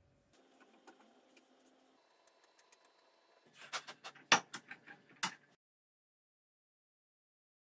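Light metal clicks and clinks of small steel parts handled at a bench vise, building to a quick run of sharp clinks about four seconds in. The sound cuts off to dead silence after about five and a half seconds.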